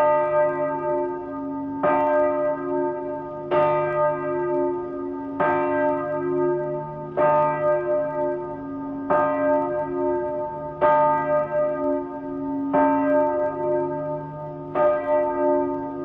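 Small church bell ringing, its clapper striking about every two seconds with a long ringing hum between strikes. The recording is slowed to half speed, so the strokes come slower and an octave lower than in life.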